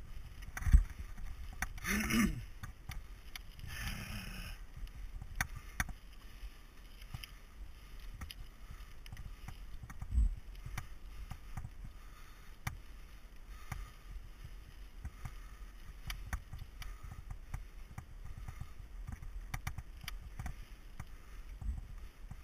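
Mountain bike rolling along a gravel forest trail: a steady rumble of tyres on gravel and wind past the camera, with frequent small rattles and clicks from the bike over rough ground and two sharper thumps, about one second and ten seconds in. The rider makes two brief vocal sounds about two and four seconds in.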